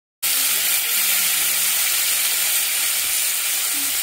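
Corn tortilla taco frying in butter in a cast-iron skillet: a loud, steady sizzle that starts suddenly just after the beginning.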